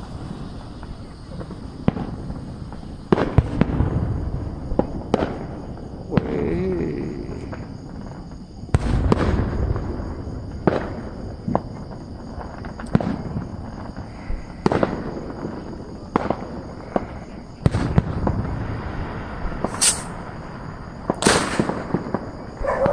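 Fireworks display heard from a distance: aerial shells bursting one after another at uneven intervals, each bang trailing off in a low rumble. Sharper, crackling bursts come near the end.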